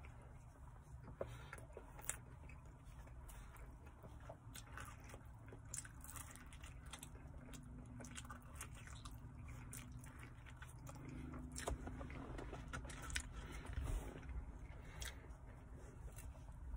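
Close-up chewing and biting of a slice of pizza, with many small irregular mouth clicks and smacks, over a faint low rumble.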